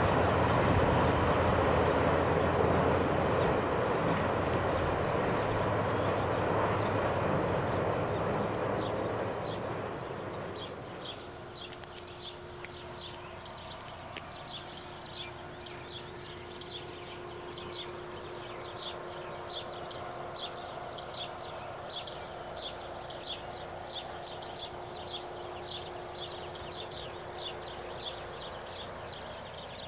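Freight train cars rolling away along the track, their rumble fading out over the first ten seconds or so. After that come steady high chirps at about two a second, with a faint steady hum under them.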